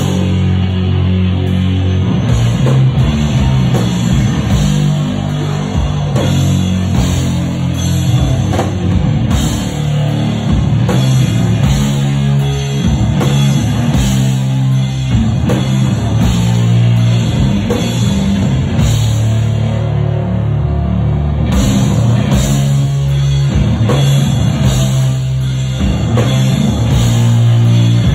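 Loud live heavy metal from a sludge metal band: slow, heavy distorted guitar riffs with deep sustained low notes, driven by a full drum kit and cymbals.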